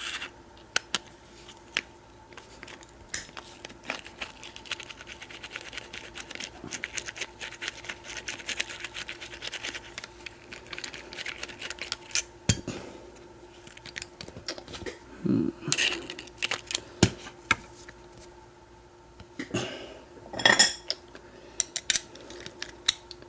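Small Phillips screwdriver working a screw out of a rekeyable padlock, with scratchy gritty clicking that is the sign of a grimy lock body. Sharper metal clinks and knocks come now and then, several in the second half.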